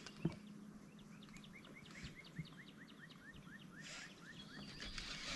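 A bird calling a rapid series of short rising chirps, about five a second for roughly three seconds, faint, with a soft hiss near the end.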